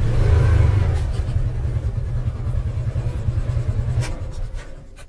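Side-by-side UTV engine running with a low rumble that eases off and fades out near the end.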